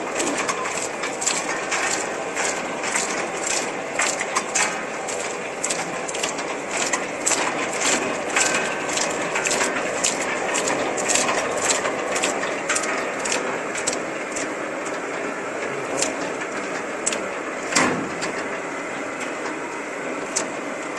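Cashew nut cutting machine running, with a steady mechanical clatter and many sharp cracks as the cashew shells are cut. The cracks come thick and fast at first and thin out in the second half.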